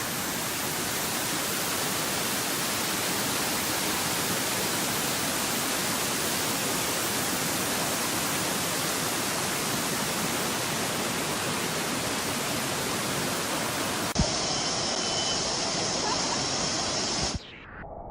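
Waterfall, a steady, even rush of falling water. About fourteen seconds in there is a click and the rush changes abruptly to a thinner, differently coloured sound, which drops away sharply near the end.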